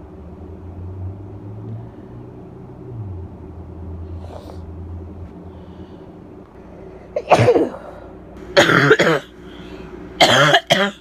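A woman with bronchitis giving harsh, barking coughs in three quick bursts, starting about seven seconds in, over a low steady hum.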